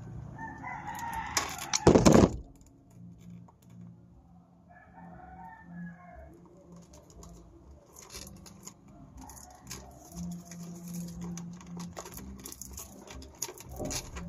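A rooster crows, with a loud bump about two seconds in. After it come a quieter call and small clicks of wire and pliers being handled.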